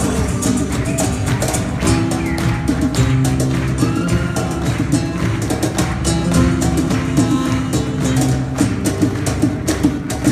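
A live acoustic band playing flamenco-style Latin music: nylon-string guitars, accordion and hand drum, with a steady run of sharp percussion hits.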